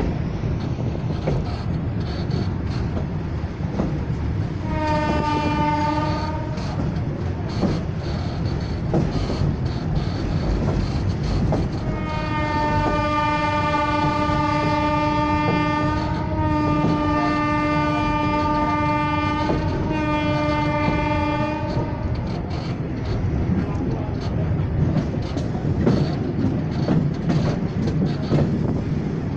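Train running, heard from aboard, with a steady rumble and rail clatter. The locomotive's horn gives a short blast about five seconds in, then a long blast starting around twelve seconds that breaks twice and ends near twenty-two seconds.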